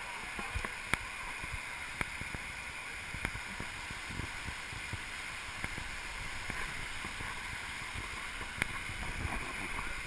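Small waterfall pouring into a rock pool: a steady rush of water, with a few short sharp clicks scattered through it.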